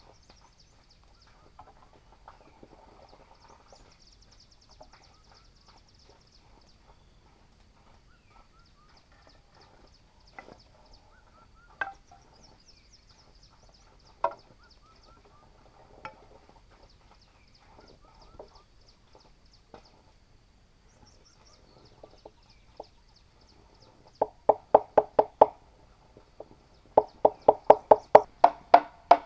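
Tool knocking on bamboo. Scattered single knocks give way near the end to fast runs of loud, ringing strikes, about four a second.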